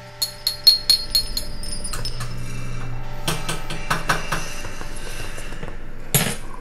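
Cutlery and dishes clinking and knocking together: a quick run of sharp, ringing taps in the first second, then scattered knocks over a steady low hum, and a louder clatter near the end.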